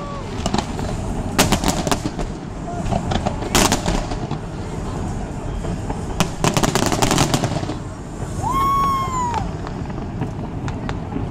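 Aerial fireworks bursting: sharp bangs and crackles in dense clusters a few seconds apart. A short high tone rises and falls about eight and a half seconds in.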